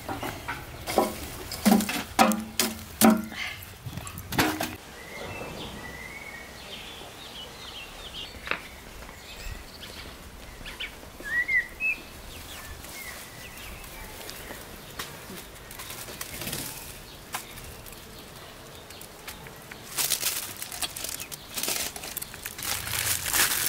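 Several metal clanks and knocks at a steel charcoal grill in the first few seconds. Then small birds chirping faintly. Near the end, aluminium foil crinkles and rustles as foil-wrapped meat skewers are laid across the grill.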